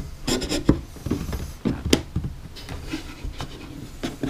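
Thin wooden panel being pushed and settled by hand into a wooden console frame: wood rubbing and scraping on wood, with a few sharp taps, the clearest about two seconds in.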